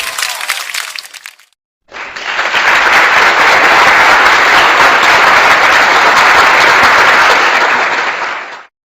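Crowd applause: a dense burst of many hands clapping starts about two seconds in, holds steady for about six seconds, and cuts off abruptly near the end. Before it, the tail of an earlier crowd sound fades out into a brief silence.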